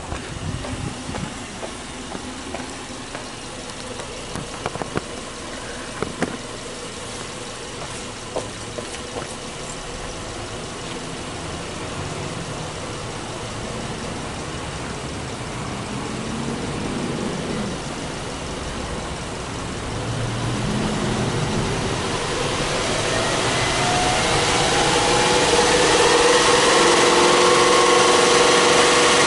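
Subaru Legacy B4's 2.5-litre flat-four (boxer) engine running under an open bonnet, with a few light knocks in the first ten seconds. From about twenty seconds in, the engine speed climbs slowly and the sound gets louder, then it drops back near the end.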